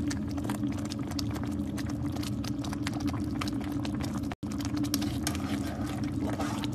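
Thick tomato sauce simmering in a pan, bubbling with many irregular small pops and ticks, over a steady low hum. The sound cuts out for a moment about four seconds in.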